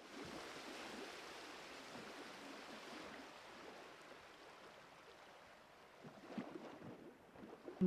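Faint rushing noise like water or surf, slowly fading, with a few soft clicks near the end.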